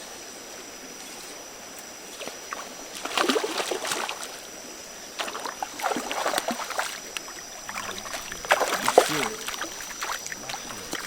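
River water splashing in three bouts a couple of seconds apart, the loudest near the end, over a steady high hiss of insects.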